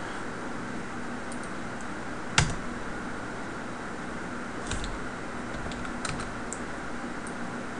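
A few separate computer keyboard key presses, sharp single clicks with the clearest about two and a half seconds in, made while entering Blender shortcuts and values, over a steady faint hum of room and computer noise.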